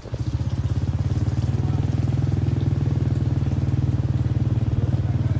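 Motorbike engine running steadily as the bike rides along, an even rapid pulse that holds the same pitch throughout.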